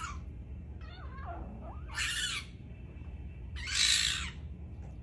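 Fennec fox making angry, agitated calls: a soft wavering call about a second in, then two harsh squawking screams, the second one the loudest.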